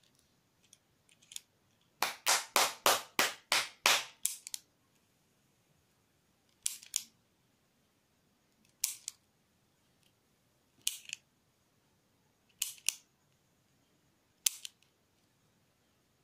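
Plastic clicks of a multi-colour retractable ballpoint pen's colour sliders being worked: a quick run of about ten clicks, then a double click about every two seconds as one slider after another is pushed down and released.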